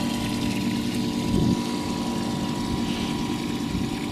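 Electric bilge pump running with a steady hum, pumping water out of a swamped skiff.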